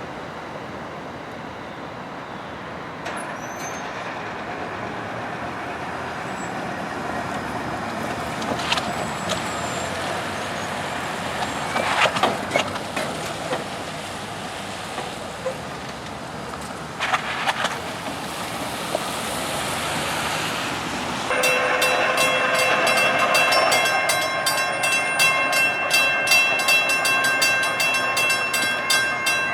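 NJ Transit commuter train rolling through a station: steady wheel-and-rail rumble with a few sharp clanks. About two-thirds of the way through, a loud sustained warning sound made of several steady tones with a rapid pulse starts and carries on until near the end.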